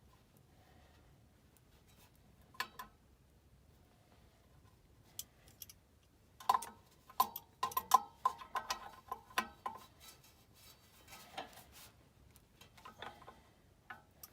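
Sharp metallic clicks and clinks of a tool working on a furnace blower wheel's hub and bolts, as the wheel is set on a new blower motor's shaft and tightened down. The first half is quiet, then comes a quick run of clicks, and a few more near the end.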